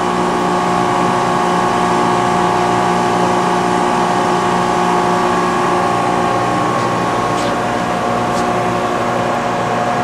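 Brown & Sharpe Micromaster surface grinder standing under power, its electric motors giving a steady hum. One higher tone in the hum fades out about seven seconds in, and there are a couple of faint clicks near the end.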